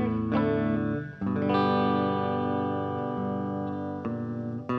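Background rock music: held electric guitar chords, with a short break about a second in before the next chord rings on.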